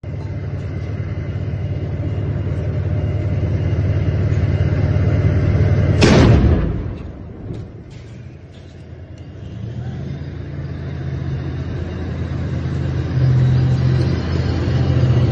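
Tank engine running with a deep, steady drone, broken about six seconds in by one very loud blast; the engine drone builds up again near the end.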